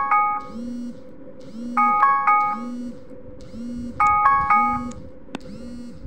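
Android 7 Clock app alarm tone ringing: a bright chime phrase repeating about every two seconds over a soft, pulsing low tone. It cuts off near the end.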